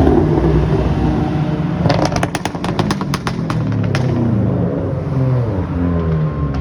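Loud supercars driving past in a procession, engines running hard, with a fast run of about a dozen sharp pops in the middle and an engine's pitch falling as it passes near the end. Overall a loud racket.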